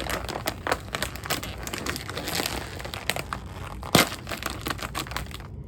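Plastic snack packaging crinkling as it is opened and handled, with a sharp snap about four seconds in.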